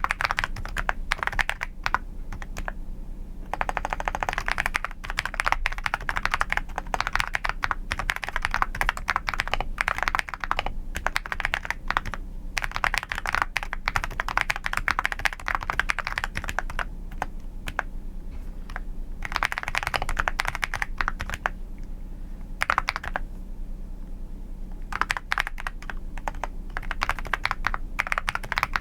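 Computer keyboard typing: fast runs of soft clacking keystrokes, broken by a few short pauses.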